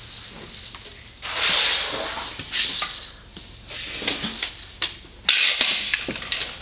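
Two bursts of hissing, each lasting about a second, one about a second in and a sharper one starting near the end, with scattered clicks and small metal handling noises between them.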